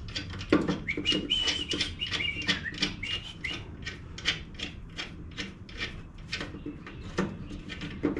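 An even run of light metal clicks, about four a second, as new bolts are run into the mower deck's aluminium spindle housing, with a wavering high squeak for a couple of seconds early on.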